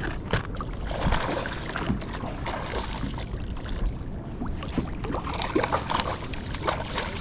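Water splashing and slapping against a fishing kayak's hull, with scattered small knocks, over wind noise on the microphone.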